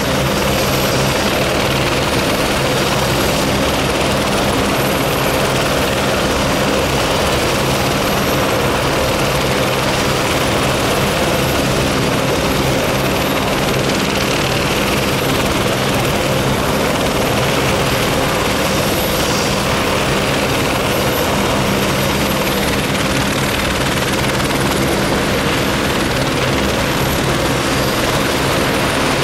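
Two helicopters running on the ground, a steady engine and rotor noise that holds at one pitch without winding up or down.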